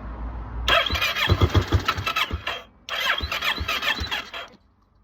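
Kawasaki ER6 parallel-twin motorcycle engine cranked on its electric starter in two bursts of about two seconds and a second and a half, pulsing and whining, without starting. The engine is being turned over with a coil pack unplugged to test the voltage reaching the coil while tracing a misfire.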